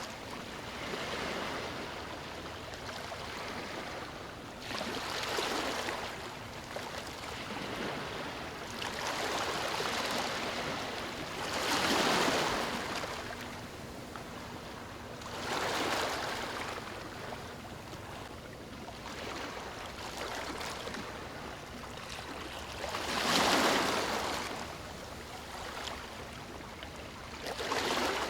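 Ocean waves washing onto a shore, each swell rising and falling away every few seconds, with two bigger breakers, one near the middle and one later on.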